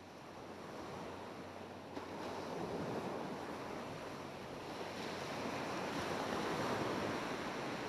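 Sea surf and wind over the dunes: a steady rushing noise with no distinct tones, fading in and growing louder over the first few seconds.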